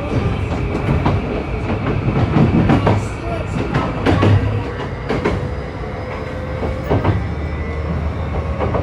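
Inside a JR East E235-1000 series electric train running along the line: a steady low rumble of wheels on rail, broken by irregular sharp clicks and knocks. A faint whine slowly rises in pitch in the second half.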